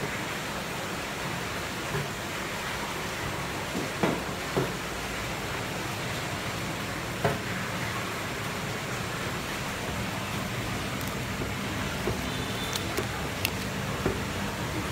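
Steady rushing background noise with a low hum, broken by a few light knocks and clicks.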